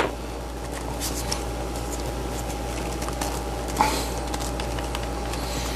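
Light plastic handling noise from a cheap LED camping lantern being pried apart by hand: a few faint clicks and rubs of its clear plastic housing, over a steady background hum.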